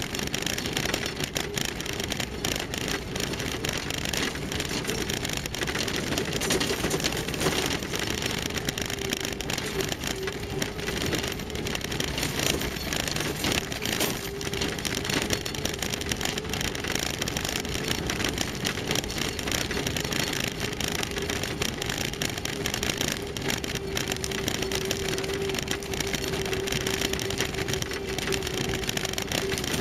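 Land Rover Series III running steadily as it drives over a rough gravel track: engine and drivetrain noise with a steady whine, and frequent rattles and knocks from the bumpy surface.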